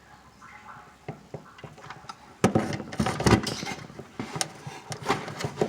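Clicks, knocks and rattling as hands work at a retaining clip and the wiring on a furnace control board. The sound is loudest in a cluster from about two and a half to three and a half seconds in, with scattered clicks after it.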